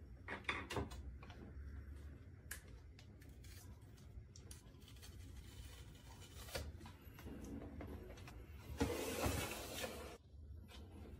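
Scattered small clicks and taps of hands handling all-in-one PC parts, with a louder rubbing noise lasting about a second near the end.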